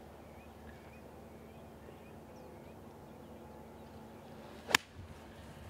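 A single sharp click of a wedge striking a golf ball on a short pitch shot, a little under five seconds in, over a faint steady background.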